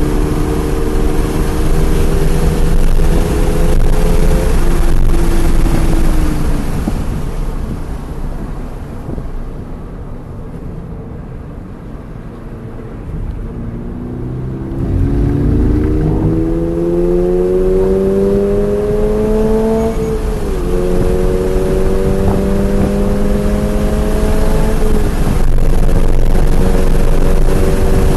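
2023 Subaru BRZ's 2.4-litre flat-four on track, heard from inside the car with heavy wind noise. The engine note falls away a few seconds in and stays quiet for several seconds under braking and turn-in. About halfway it climbs hard in pitch under full throttle, with two quick upshifts, each a sudden drop in pitch, in the last third.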